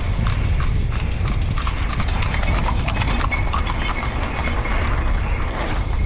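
Horse's hooves clip-clopping on asphalt as it pulls a carriage, a few irregular clacks a second, over a steady rumble of wind on the microphone.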